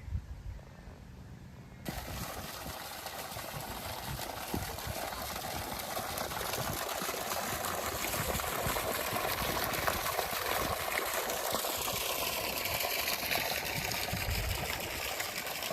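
A steady rush of running water that starts abruptly about two seconds in.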